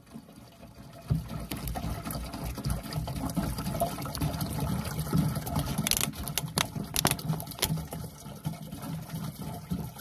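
Makgeolli poured from its bottle into a plastic jerry can partly filled with liquid: a steady stream splashing into the liquid, starting about a second in, with a few sharp clicks past the middle.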